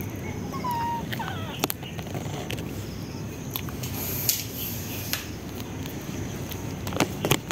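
Cats eating a crunchy snack off concrete: scattered small crunching clicks, a little louder near the end, with a short thin cat mew about a second in.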